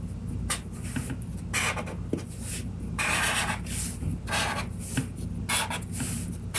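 Colouring in on paper: a drawing tool scratching back and forth in a string of short, irregular strokes, with a longer stroke about three seconds in.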